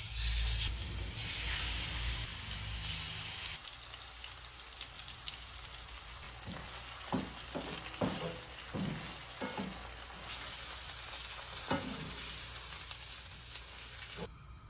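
Food frying and sizzling in a hot pan: the sizzle starts suddenly, is loudest for the first few seconds, then settles to a steady hiss. Around the middle, several short scraping strokes of stirring come through the sizzle.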